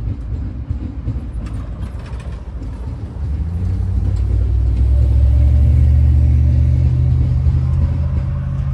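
A pickup truck crosses the tracks and drives past. Its engine comes up out of a low rumble with scattered clicks about three seconds in, grows to a steady loud hum that peaks around the middle, and eases off near the end.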